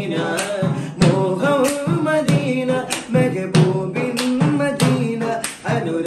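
A man singing a madh song, an Islamic devotional song in praise of the Prophet and Madina, without instruments. A sharp hand-beaten rhythm keeps time under the voice, about one stroke every two-thirds of a second.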